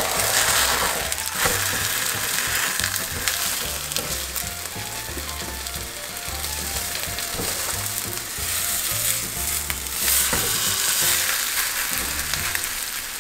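Grated potato-and-onion pancake frying in oil in a nonstick pan, a steady sizzle, with a few clicks and scrapes of a spatula as it is lifted and turned. Background music with a bass line plays underneath.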